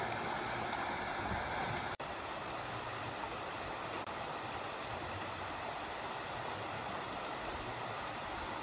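Shallow river running steadily through a stone-walled channel: an even rush of water. It cuts out for an instant about two seconds in.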